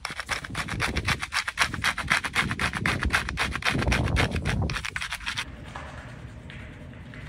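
A stick of chalk being scrubbed rapidly back and forth across paper laid over rough gravelly pavement to take a rubbing of its texture, in quick rasping strokes of about eight a second. The strokes stop abruptly about five and a half seconds in, and a fainter, softer rubbing follows.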